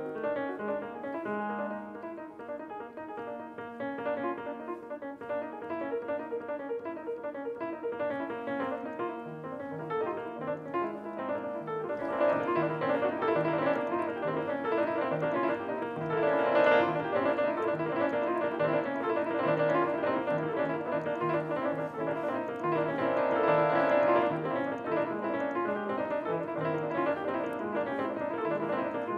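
Grand piano played solo: a busy run of notes over a repeating low bass figure, growing louder about twelve seconds in, with swells after that.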